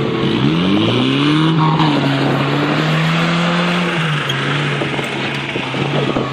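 Off-road vehicle's engine revving: it drops briefly, then climbs steeply in pitch, holds at high revs for a couple of seconds and eases off about four seconds in, over a loud rushing noise.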